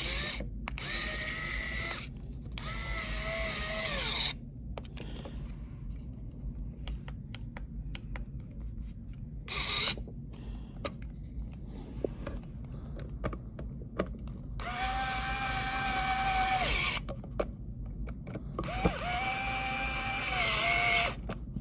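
3.7 V cordless electric screwdriver motor running in about five separate bursts, each a steady whine at one pitch; the last two are the longest. Small clicks and taps come between the runs.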